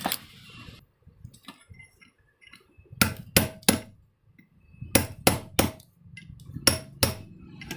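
Metal-on-metal hammer taps on an 18-inch exhaust fan motor's ball bearing, driving it down the rotor shaft. There is one sharp ringing strike, then groups of three or four quick strikes with pauses between them.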